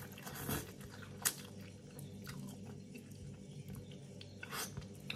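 Chewing a mouthful of vegetable ramen noodles close to the microphone: soft, wet mouth sounds with a sharper click about a second in, over a faint steady hum.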